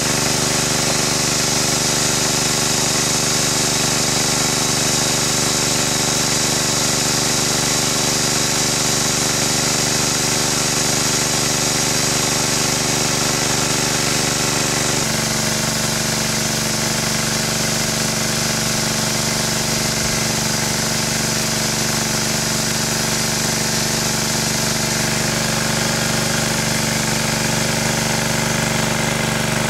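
Small gasoline-engine water pump running steadily at the pond's edge, with the gush of water from its outlet over the engine's hum. The engine note shifts once, about halfway through.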